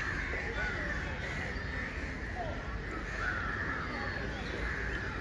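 Crows cawing over the chatter of a crowd of people.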